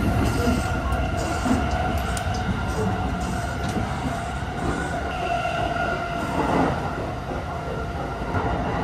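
Inside a standing 285-series Sunrise Seto sleeper car: a steady hum of the car's onboard equipment with a low rumble and a few steady tones. Light footsteps and small knocks sound over it.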